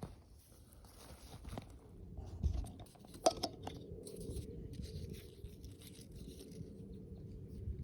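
Dry leaf litter and twigs crackling and rustling underfoot as someone moves through woodland undergrowth, with a sharp snap a little over three seconds in.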